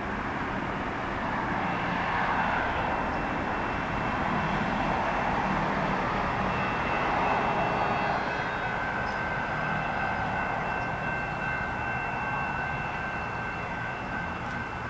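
NJ Transit River Line Stadler GTW diesel light rail train approaching, its diesel engine running with a steady low hum. A steady high-pitched whine comes in about a second and a half in, and a second, lower whine joins about halfway through.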